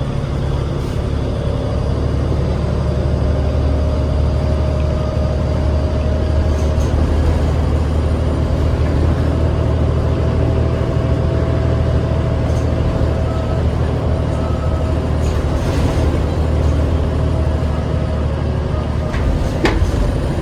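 Interior sound of a 2008 New Flyer D40LF city bus with its Cummins ISL 8.9-litre six-cylinder diesel running: a steady low drone with a faint whine above it. A sharp click comes near the end.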